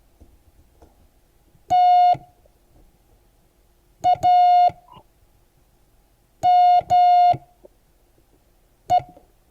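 Morse code practice tone of one steady pitch, keyed slowly with long gaps between letters, spelling the word TAME: one dah, then di-dah, then dah-dah, then a final dit.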